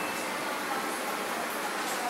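Steady, even background noise, a hiss with no distinct events in it.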